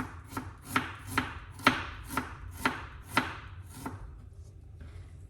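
Kitchen knife slicing a piece of fresh ginger, each cut ending in a sharp knock on the chopping board, about two cuts a second. The cuts stop about four seconds in.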